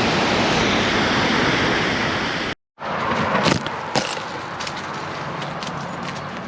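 Loud, steady rush of a wide man-made waterfall on a river. About two and a half seconds in it cuts off, and quieter outdoor noise follows with a few sharp clicks or knocks.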